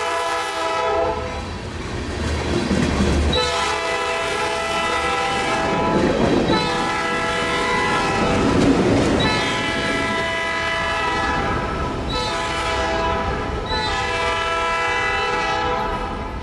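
Norfolk Southern freight train rolling past, its wheels clacking over the rail joints under a steady rumble, while a locomotive horn sounds a series of long chords with one short one near the end, a grade-crossing signal. The horn stops just before the end and the rumble starts to fade as the train clears.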